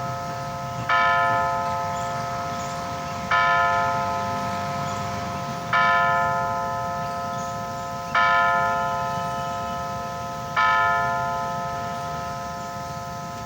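A bell struck five times at a steady pace, about every two and a half seconds, each stroke ringing on with the same cluster of clear tones and slowly dying away until the next one.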